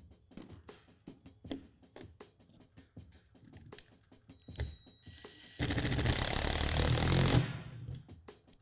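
Cordless drill driving a bolt to fasten a playset deck to its metal deck frame, running in one steady burst of about two seconds a little past halfway. Before it come light clicks and taps of hardware being handled.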